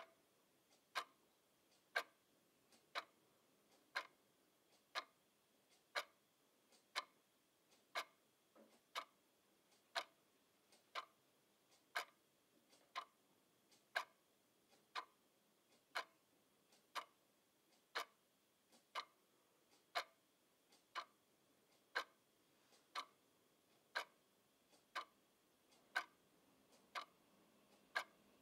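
Quartz twin-bell alarm clock ticking steadily, one sharp tick each second as the second hand steps, with a fainter click between some ticks.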